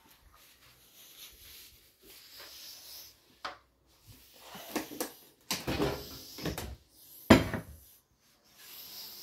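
Rustling and knocking of things being handled in a small room, like a cupboard or drawer, with a cluster of knocks around the middle and one sharp, loudest knock about seven seconds in.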